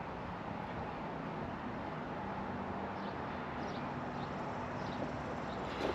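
Steady low background noise with a faint low hum, and a few faint short high chirps scattered through the middle and end.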